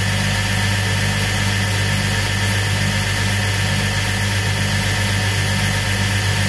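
Knife belt grinder running unloaded: its electric motor drives a 40-grit zirconia belt round the rollers from an aluminium drive wheel mounted directly on the motor shaft. A steady, even hum with a hiss over it.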